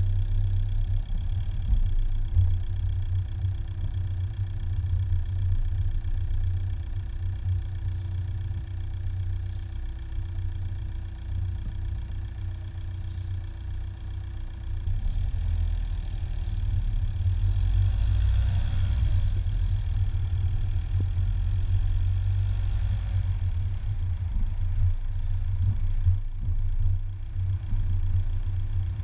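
A car driving slowly, heard from inside the car: a steady low rumble of engine and road, with a faint constant hum. It grows louder about halfway through, and a brief hiss rises over it a little later.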